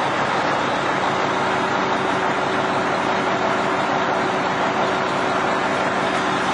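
Engine running steadily with a constant low hum and no change in speed.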